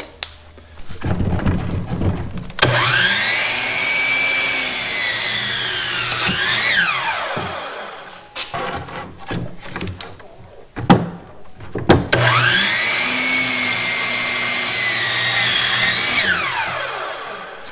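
Powered miter saw making two cuts through cedar fence stock. Each time the motor whines up to speed, the pitch sags as the blade cuts, then briefly rises and winds down. Between the two cuts come several sharp knocks and clicks of the wood being handled.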